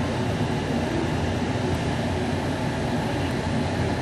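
Steady low hum and hiss of mechanical background noise, unchanging throughout, with no distinct events.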